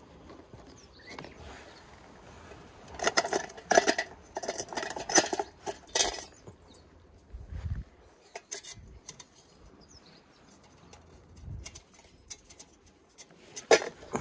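Metal camp-stove stand clinking and scraping as it is handled and set down on stones: a dense run of quick knocks and clicks about three to six seconds in, a few scattered clicks after, and one sharp knock near the end.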